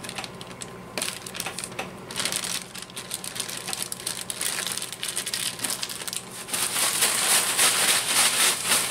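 Plastic zipper bag crinkling as it is handled and sealed. From about six and a half seconds in it is shaken, and the panko breadcrumbs and egg-coated squirrel pieces rustle and rattle inside it, louder and in quick repeated strokes.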